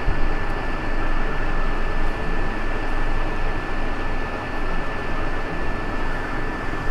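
Hot-air rework station blowing steadily on a circuit board, a constant rush of air with a thin steady whine, as it melts the solder under a capacitor so that it can be lifted off.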